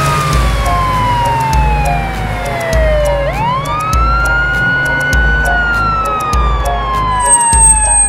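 Police siren sound effect in a slow wail: the pitch falls for about three seconds, sweeps quickly back up, holds briefly and falls again. Background music with a steady bass beat plays underneath.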